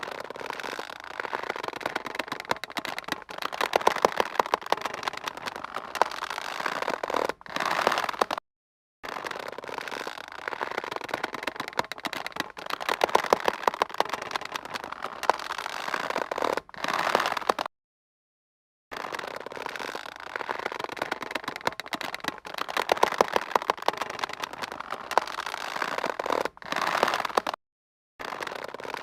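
Taut rope squeaking and creaking under strain: a dense run of rapid creaks, repeated in stretches of about eight seconds broken by brief silences.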